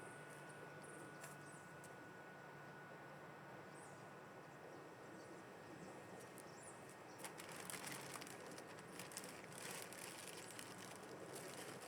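Near silence: faint outdoor background, with light irregular clicks and rustles of handling from about seven seconds in.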